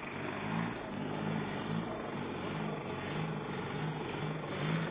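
A vehicle engine running steadily with a regular low pulsing, over a general noisy background.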